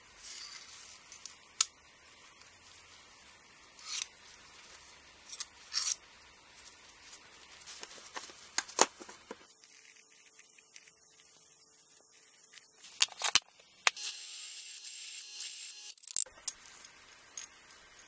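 Thin steel plates being handled on a workbench: scattered light metal clicks and taps, with short scraping and rubbing as the pieces are fitted together, marked and set down.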